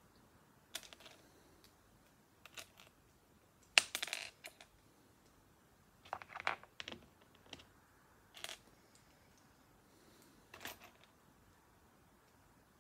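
Small plastic Lego pieces clicking and rattling as they are picked out and handled, in scattered short bursts; the loudest is a rattle about four seconds in.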